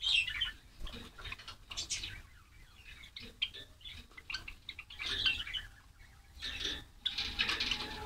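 A flock of white Java sparrows chirping in quick clusters of short high calls, loudest at the start, about two seconds in, and again around five and seven seconds, with wing flutters as birds shift between perches.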